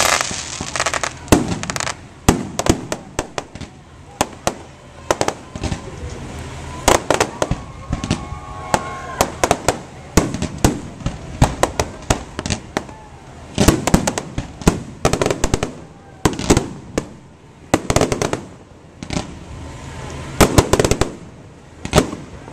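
Fireworks display: aerial shells bursting with sharp bangs and crackling, coming in rapid clusters again and again.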